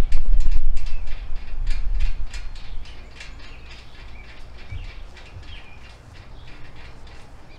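Ratchet wrench clicking in quick, even strokes, about three to four a second, as a bolt is tightened. The clicks are loud for the first two seconds or so and then fainter, with birds chirping in the background.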